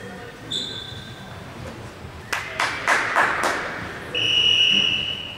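Referee's whistle in a sports hall: a short blast about half a second in, then a longer, louder steady blast lasting over a second near the end. Between the two blasts come a few sharp thumps.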